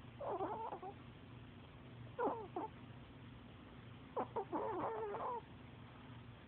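Pomeranian snoring in its sleep: three high-pitched, wavering snores, a short one near the start, a shorter one about two seconds in, and a longer one of about a second past four seconds in.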